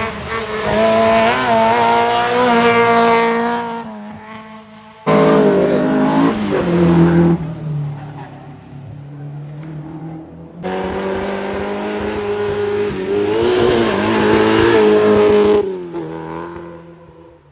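Historic rally cars at speed on a special stage, their engines revving hard and changing pitch as they accelerate and shift. There are three separate passes with abrupt cuts between them, about five and ten and a half seconds in, and the last one fades out near the end.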